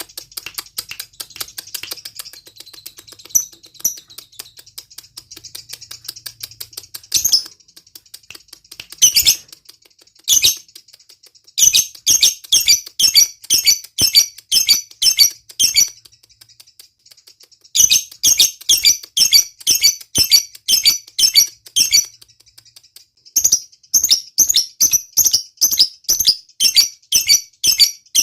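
Lovebird ngekek: runs of rapid, high, repeated chirps, each several seconds long with short breaks between. They follow a faint fast ticking chatter and a few single sharp calls.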